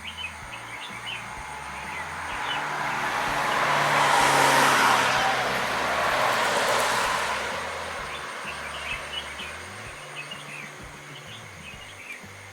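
A road vehicle passes, its noise swelling to a peak in the middle and then fading away, while small birds chirp in short calls near the start and again in the last few seconds.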